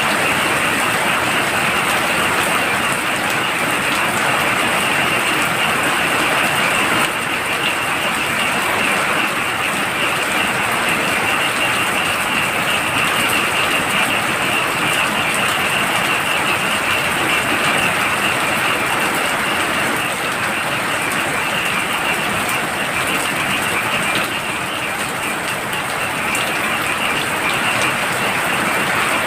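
Heavy rain falling steadily at night, with a continuous high chorus of frogs calling through it.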